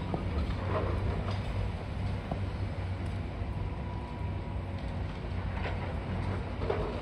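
Long-boom demolition excavator's diesel engine running steadily with a low rumble, with a few scattered knocks and crunches of breaking concrete and debris as its shear works the building.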